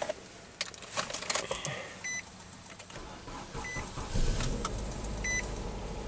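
A few clicks, then a dashboard warning chime beeping three times about a second and a half apart. About four seconds in, the Nissan Sentra's 1.8-litre four-cylinder engine starts and settles into a low, steady idle.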